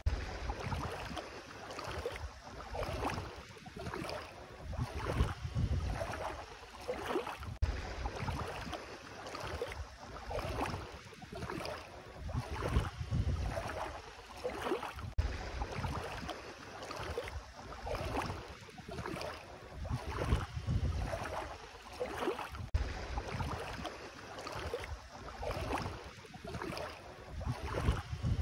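Bare feet wading through ankle-deep sea water, sloshing with each step in a steady rhythm of about one step a second, with wind rumbling on the microphone.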